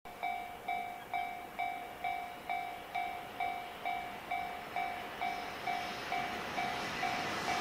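Japanese level-crossing warning bell ringing, an electronic ding repeated steadily a little over twice a second. Near the end, the noise of an approaching electric commuter train begins to build.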